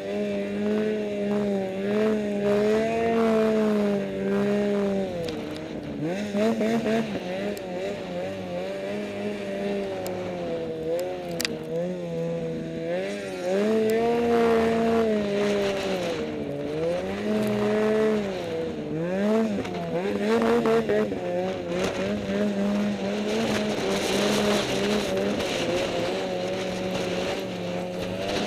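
Snowmobile engine running under way, its pitch rising and falling again and again as the throttle is opened and eased.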